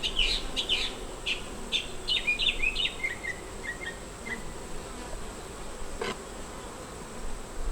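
Honey bees buzzing in a steady hum around an opened hive. A run of high chirps sounds through the first three seconds, and there is a single sharp click about six seconds in.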